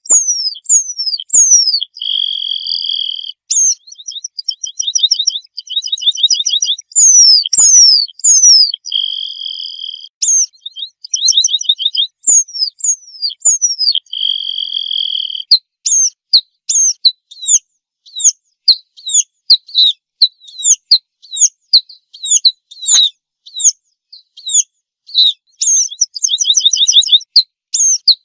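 Red-throated pipit song: rapid high trills alternating with three harsh buzzy drawn-out notes and thin downward-sliding whistles, then, from about halfway on, a long run of short high downslurred notes at roughly two a second.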